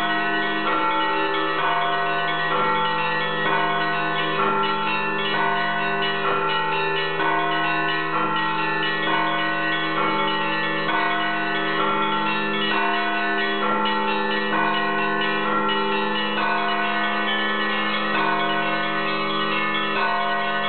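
Russian Orthodox church bells rung by one bell ringer: fixed bells sounded by clappers pulled on ropes. The small bells are struck over and over in a quick repeating pattern over the sustained hum of the larger bells.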